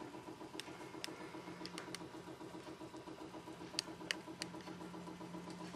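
Faint, steady machine hum with a fast, even pulse, and a few scattered light clicks.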